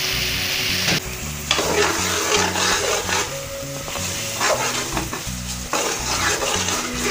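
A metal spoon stirs and scrapes thick, sizzling palak gosht (spinach and meat) in an aluminium pot as it is cooked down. A steady frying hiss changes suddenly about a second in to repeated scrapes and bursts of sizzle.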